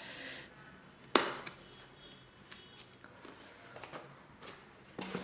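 Cardboard packaging being opened and handled: a brief rustle or slide at the start, a sharp knock about a second in, then scattered small taps and clicks.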